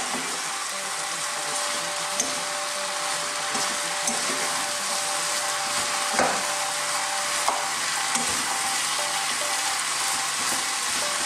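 Shredded cabbage with minced chicken and bell pepper sizzling as it is sautéed in a frying pan and stirred with a metal spoon, with a few knocks of the spoon against the pan.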